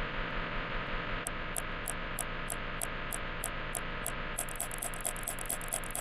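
Steady static-like hiss with a regular high ticking, about three ticks a second, that starts about a second in and turns faster and denser near the end.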